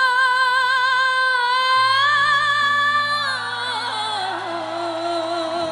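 Background music: a female voice sings long held notes with vibrato over sustained keyboard chords. About three seconds in it slides down in a run to a lower held note.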